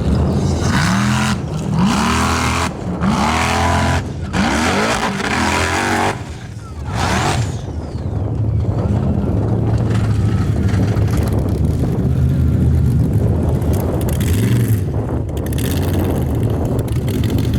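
Formula offroad buggy's race engine revving hard in repeated bursts, its pitch rising and falling, with several abrupt breaks. About halfway through it settles into a steadier high-revving run.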